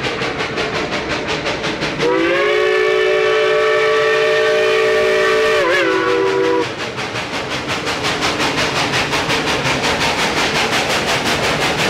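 Narrow-gauge K-28 steam locomotive working with rapid, even exhaust chuffs. About two seconds in, its steam whistle sounds a chord for about four and a half seconds. The whistle's pitch dips briefly just before it cuts off.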